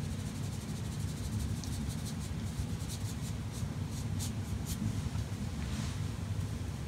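Paintbrush stroking over watercolour paper, a quick run of short, faint strokes, over a steady low hum.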